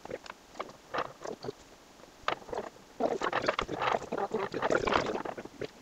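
Metal 3D-printer Z-axis rod rolling across a wooden tabletop, an irregular rattling rumble that grows denser and louder about three seconds in. The rod is being rolled to check whether it is bent: a bent rod rolls unevenly and knocks on its high spots.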